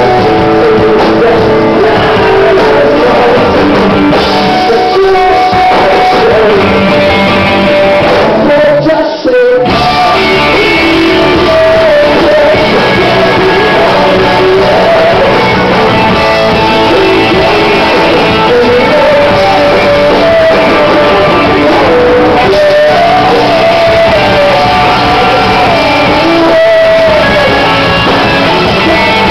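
Live rock band playing loud: bass and electric guitars with drums, and the bassist singing lead into the microphone. The band cuts out for a split second about nine seconds in, then comes straight back.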